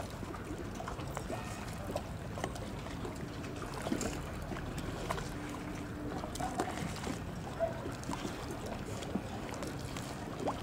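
Small lake waves lapping at the shore, with irregular small splashes over a steady background hiss.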